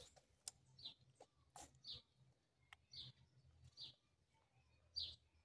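Near silence with a bird in the background repeating a short high chirp about once a second, and a few faint clicks.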